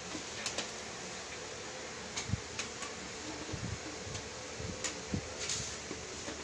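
Steady mechanical hum and hiss, with scattered short clicks and a few soft low thumps.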